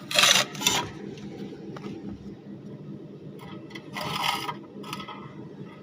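Metal parts of a shawarma gas burner being handled and scraped as a spare part is fitted, with two short bursts of scraping, one right at the start and one about four seconds in, over a steady low mechanical hum.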